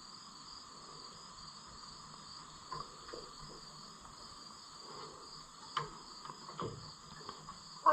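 Steady chorus of insects chirring, with a few faint, scattered clicks and knocks from parts being worked into place on a tractor.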